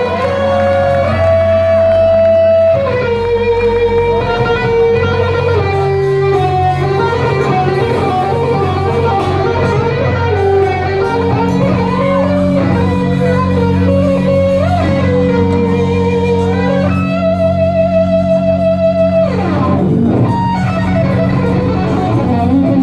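Live rock band playing an instrumental passage: an electric guitar lead of held, bending notes over bass and drums. Near the end a long wavering note gives way to a quick downward slide.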